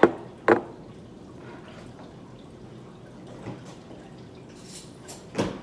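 Kitchenware being handled while milk is added to the mixing bowl: two sharp clinks in the first half-second and another near the end, with soft handling noise between.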